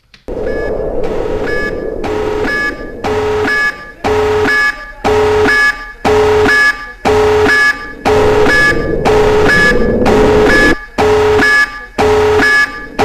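Loud electronic beeping: the same steady multi-tone beep repeating about twice a second, without a break.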